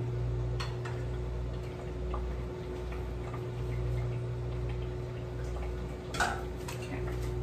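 A metal ladle or spoon clinking and tapping against a pot and jars at the stove, a few light ticks and one louder clink near the end, over a steady low hum.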